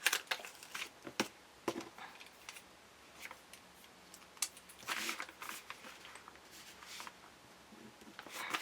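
Faint paper and sticker-sheet handling as a gift-tag sticker is taken out of its pack: scattered light taps and clicks with short rustles, the longest about five seconds in and another near the end.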